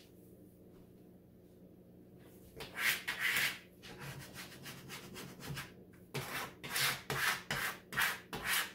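Credit card scraped back and forth over vinyl and transfer tape, burnishing the decal down. Short repeated scraping strokes start about two and a half seconds in and come faster, about two a second, in the second half.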